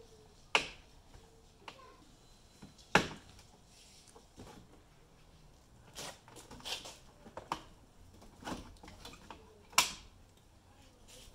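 Plastic retaining clips of a BMW F30 kidney grille snapping free of their mounts as the grille is pulled out: a series of sharp clicks, the loudest about three seconds in and another near the end, with light handling noise between.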